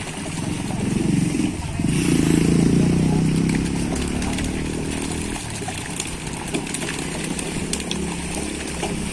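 A small engine running, swelling to its loudest about two to three seconds in and fading away about five seconds in, over the scattered splashing of catfish crowded in a seine net in the water.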